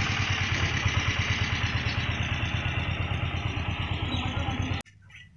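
Small three-wheeler goods carrier's engine running with a rapid, even pulse as it drives away, slowly fading, then cutting off abruptly about five seconds in.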